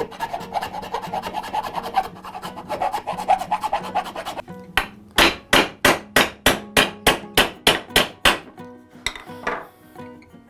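Hand tools working wood: a run of fast, light scraping strokes, then about a dozen heavy, evenly spaced strokes at roughly three a second, easing off near the end.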